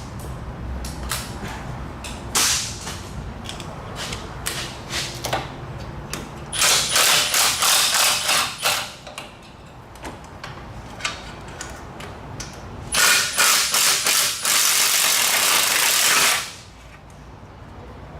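Two bursts of a power tool rattling rapidly, the second ending in a steady hiss that cuts off suddenly, with scattered clicks and clanks of hand tools on metal between them.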